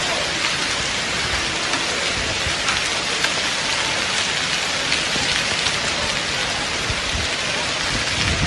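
Gravel-sized hailstones falling with heavy rain: a loud, steady downpour thick with many small sharp ticks of hail striking.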